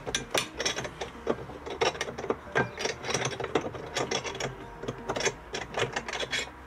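Ratchet socket wrench clicking in quick, uneven strokes while undoing the nut on a van battery's hold-down bracket.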